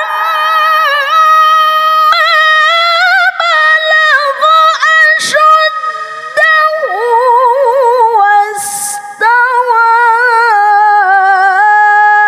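A woman reciting the Quran in the melodic tilawah style at a microphone. She holds long notes with wavering ornaments and slides between pitches, with short breaks between phrases.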